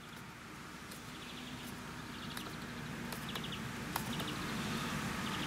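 Outdoor background: short bursts of rapid high chirps, about one burst a second, over a steady low hum that slowly grows louder, with a single sharp click about four seconds in.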